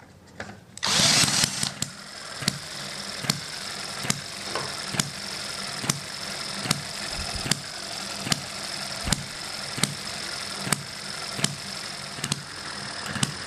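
A cordless drill spins the flywheel of an Eachine ETX (M91) vertical water-cooled hit-and-miss model engine to start it, loudest for about a second near the start. The engine then runs on its own with a steady hum and a sharp pop about every 0.8 s.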